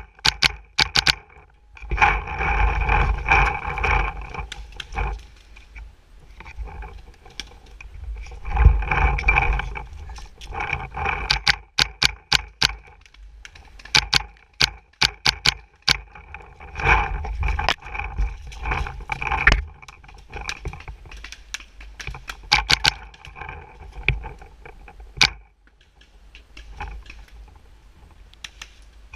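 Mac Dev Clone VX paintball marker firing in volleys of quick shots, several a second, heard from a camera mounted on its barrel. Between volleys, rumbling wind and handling noise on the barrel camera's microphone.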